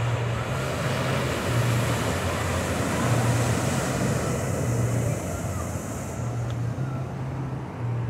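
Ocean surf breaking on rocks below a clifftop, a steady rushing hiss, with wind buffeting the phone's microphone in uneven low rumbles. The surf's hiss drops off about six seconds in.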